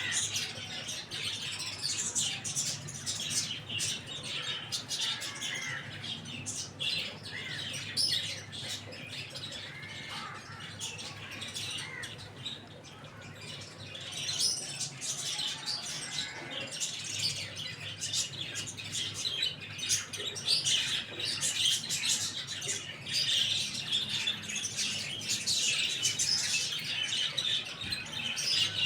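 Many small birds chirping busily and continuously, with a few short arched call notes among the chirps in the first third.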